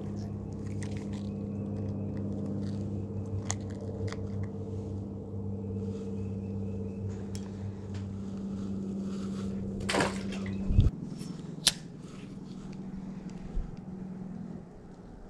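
Small clicks and handling noises as a crappie is unhooked and held up, over a steady low motor hum that stops about two-thirds of the way in. Around then comes a quick whoosh followed by two sharp clicks, as a spinning rod is cast and its reel engaged.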